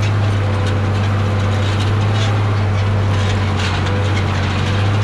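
Big Ford farm tractor's diesel engine running steadily under load while pulling a tillage implement through the soil, a constant low drone with irregular light rattles over it.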